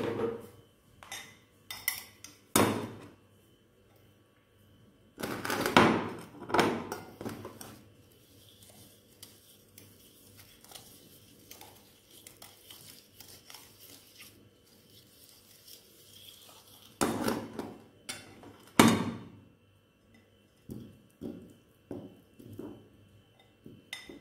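Metal spoon clinking and scraping against a glass bowl as instant-noodle seasoning and oil are stirred together, with louder clatters about five seconds in and twice more about two-thirds through. Lighter taps near the end as the spoon is knocked against the plate and bowl.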